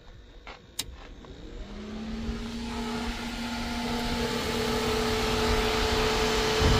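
A couple of switch clicks, then a pair of electric radiator fans starting up: a steady motor hum and a rush of air that grows steadily louder as they come up to speed.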